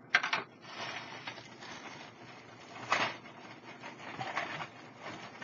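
Clear plastic bag crinkling and rustling as hands rummage through it for loose Lego pieces, with louder crackles just after the start and again about three seconds in.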